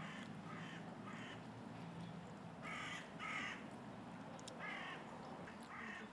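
Harsh, caw-like bird calls repeated about seven times, often in quick pairs, over a faint background hum.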